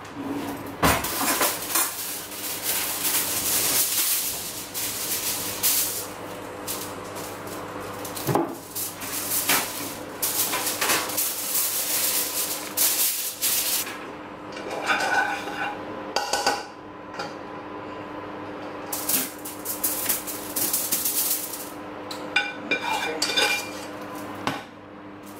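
A spatula scraping and clattering against a metal cooking pot as seasoned potato wedges are stirred and tipped out onto a foil-lined baking tray, irregular knocks and scrapes throughout. The pot rings briefly a couple of times.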